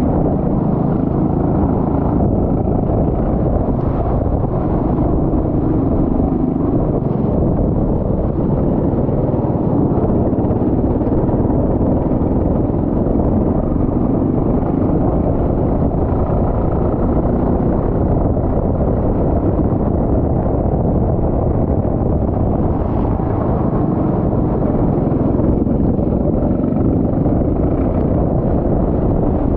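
Go-kart engine running continuously during a race lap, loud and steady in level throughout.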